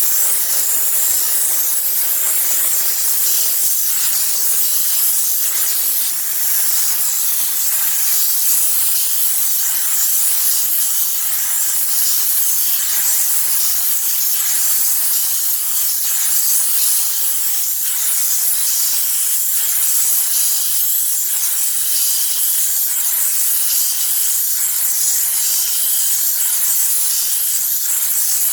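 Steam cleaner jetting steam onto an air-conditioner unit to clean it: a steady, unbroken high hiss.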